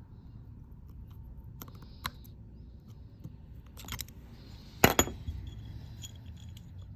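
Light clicks and taps of small hard objects being handled, with one sharp, louder click about five seconds in.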